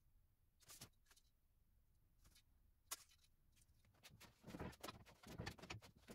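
Near silence with a few faint, sharp clicks, then a quicker run of faint clicking and clattering in the last two seconds.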